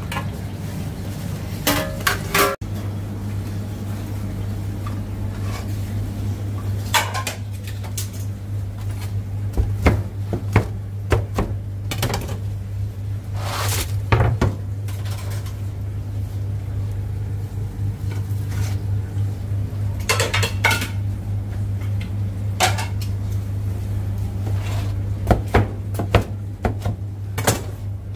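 Kitchen clatter: pizza pans, a wooden cutting board and utensils knocking on a stainless-steel counter in scattered sharp knocks, over a steady low hum.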